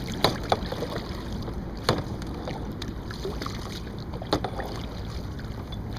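Kayak being paddled: steady water noise with several sharp knocks scattered through the strokes, and wind on the microphone.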